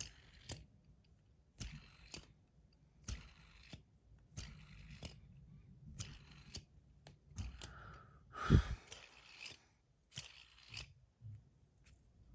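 Bar fidget spinner being flicked and handled: a series of short clicks and scrapes about one every second or so, with one louder knock about eight and a half seconds in.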